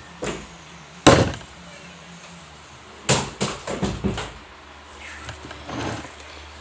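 A few sharp knocks and bumps: one loud knock about a second in, then a quick run of several more around three to four seconds in, with softer handling noise near the end.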